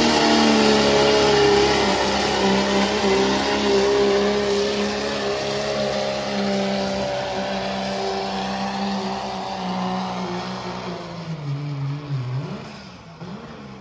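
Diesel Dodge Ram pickup engine at full throttle, dragging a weight-transfer sled in a truck pull. Its note sinks slowly in pitch as the sled bears down, fades as the truck moves away, and drops off and wavers near the end as the pull finishes.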